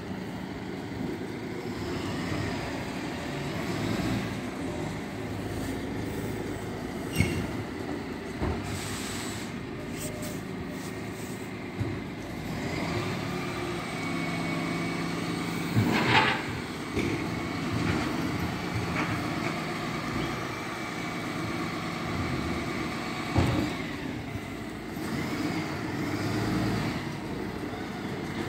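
Refuse collection lorry with its engine running steadily while stopped to collect bins. Through the middle there is a whine from the hydraulic bin lift and compactor, and several sharp clanks of bins and metal ring out, the loudest about halfway through.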